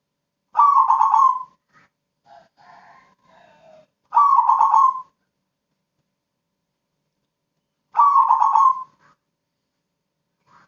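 Crossbred zebra dove (perkutut) cooing: three loud, rapidly pulsing coos of about a second each, spaced three to four seconds apart, with softer, lower calls between the first two.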